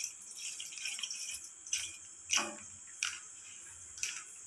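Milk pouring from a vessel into a steel kadai, the stream tailing off into a few separate drips and small splashes, the loudest about two seconds in.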